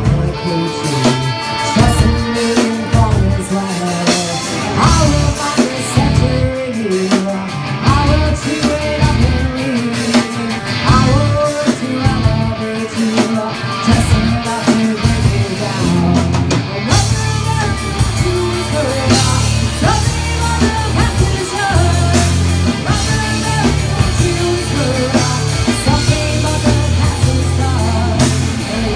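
A live rock band playing: drum kit, bass and electric guitar, with a bending melodic line over a heavy low end.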